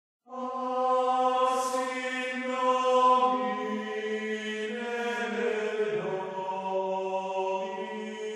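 Slow sung chant: a voice holding long, drawn-out notes, the pitch stepping down about three seconds in and again near six seconds.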